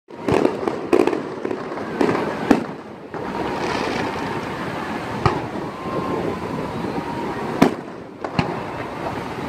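Aerial fireworks shells bursting overhead: about seven sharp, irregularly spaced bangs, several close together in the first few seconds and a few more later, over a steady rushing background.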